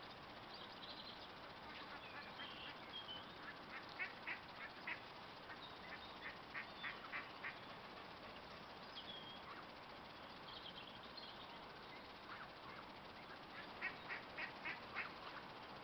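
Ducks quacking in three short runs of five or six calls each, over a faint steady hiss from a kettle heating toward the boil.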